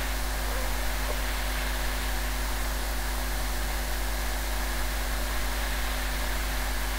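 Steady hiss with a low, constant hum: the recording's own background noise, with no distinct sound event.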